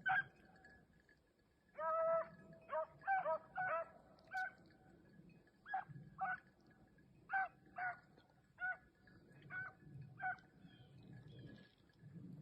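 Beagles baying on a rabbit's trail: about a dozen short bawling barks from the pack, irregularly spaced, with one longer drawn-out bay about two seconds in.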